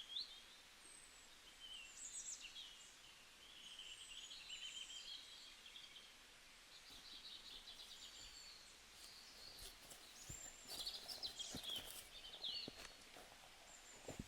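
Faint birdsong: small birds chirping and twittering over quiet outdoor background noise, with a few soft clicks in the second half.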